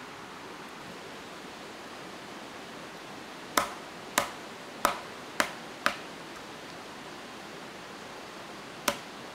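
Five sharp chopping knocks of a blade striking wood, about two a second, then one more near the end, over the steady rush of a forest stream.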